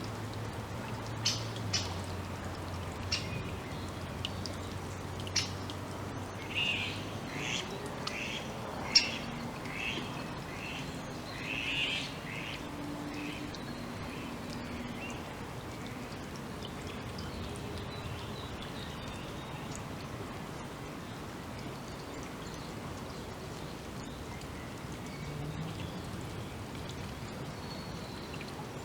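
Forest birds calling over a steady background hiss: a few sharp single calls in the first seconds, then a run of about seven evenly spaced call notes, after which only faint distant calls remain.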